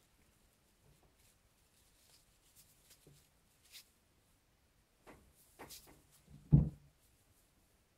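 A kitten playing with a tinsel toy: faint rustling and light taps, then a cluster of knocks and one loud thump about six and a half seconds in as it jumps against the wall and the cloth-covered box it stands on.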